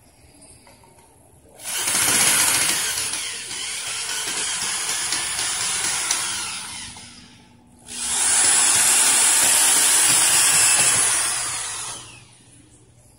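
Corded electric drill running into pine wood in two long runs of about five and four seconds, with a short pause between. The first run starts loud and eases off; the second holds steady until it stops near the end.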